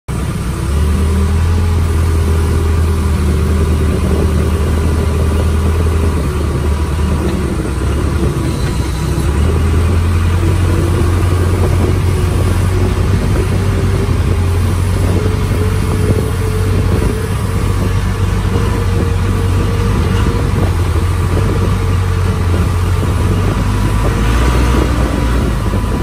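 Backhoe loader's diesel engine running, heard from the operator's seat in the cab: a loud, steady low drone that eases off briefly about eight seconds in.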